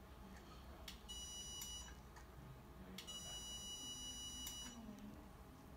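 Dental diode laser's emission tone: two high, steady electronic beeps, the first under a second long and the second about a second and a half, each sounding while the laser fires into the gum pocket. Faint clicks come around the beeps.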